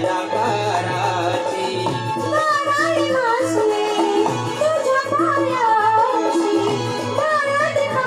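Marathi folk music from a shahiri performance: a wavering, ornamented melody over a steady held note and drumming.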